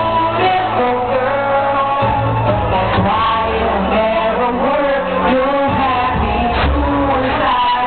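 Live band playing a rock-pop song with a lead singer, loud and continuous over a bass line that changes note every second or so.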